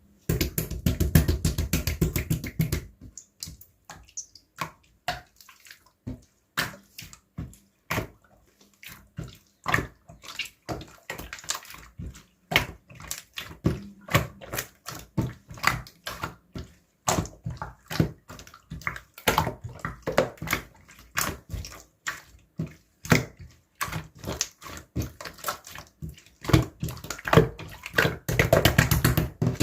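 Slime being squeezed and stretched by hand: wet squishing with irregular popping and clicking, densest about half a second in and again near the end.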